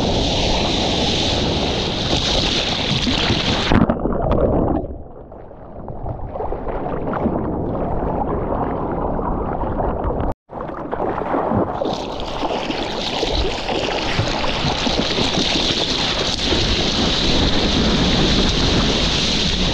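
Rushing surf and wind noise on a surfer's POV camera, a loud steady hiss of water and wind. About five seconds in it turns muffled and dull for a second or two, then cuts out completely for an instant near the middle before the hiss returns.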